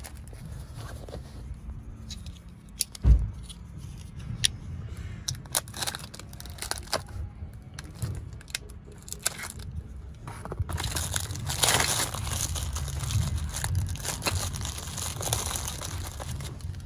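Clear plastic bag around new brake pads being torn open and crinkled, with scattered sharp clicks and rustles. A single heavy thump about three seconds in is the loudest sound, and the rustling grows denser about eleven seconds in as the pads come out of the bag.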